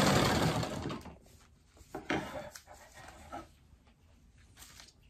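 Vintage black sewing machine stitching, running down and stopping about a second in, followed by soft rustles and a few light clicks as fabric is handled and pulled out from under the presser foot.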